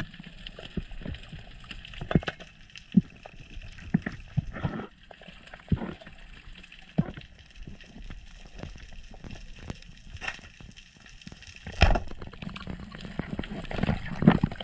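Underwater sound picked up by a GoPro inside its waterproof housing: muffled water movement with scattered sharp clicks and knocks, and a louder knock near the end.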